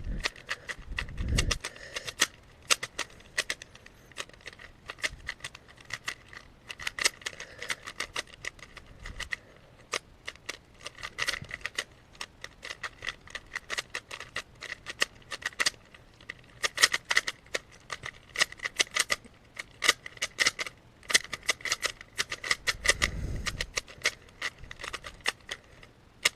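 Rubik's cube being turned fast by hand: rapid, irregular clicking and rattling of the plastic layers as they are twisted, with a couple of dull handling thumps near the start and about three-quarters of the way through.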